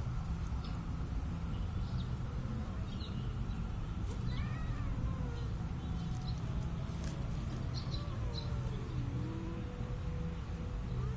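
Cat yowling during mating: drawn-out, wavering calls that start about four seconds in, bend up and down in pitch, and end in one long steady note. A steady low hum runs underneath.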